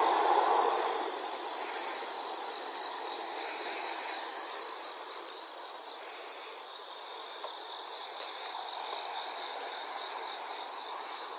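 Outdoor ambience of insects chirring steadily, over a broad rush of background noise that swells briefly in the first second.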